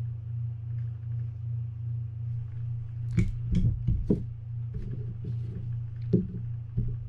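Small clicks and knocks of a spinning reel's metal parts being handled and a nut set down on a work mat, a cluster about three to four seconds in and a couple more near the end, over a steady low hum.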